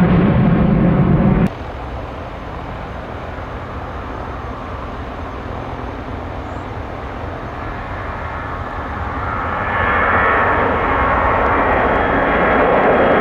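Airliner engines heard from the ground, steady at first, then growing louder about ten seconds in with a rising higher whine as the aircraft draws nearer. A louder, lower engine sound cuts off abruptly about one and a half seconds in.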